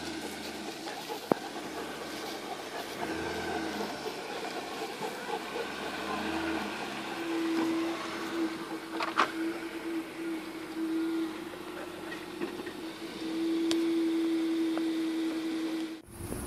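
A four-wheel-drive SUV's engine running as the vehicle crawls slowly across grass on a dirt track, with a steady drone and a couple of light knocks. The sound cuts off sharply just before the end.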